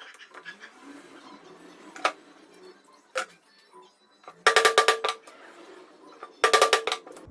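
Rapid bursts of ringing taps as a sharpened tube is struck to punch the dust-extraction holes through a sanding disc. Two quick flurries of taps come about 4.5 and 6.5 seconds in, with single knocks before them.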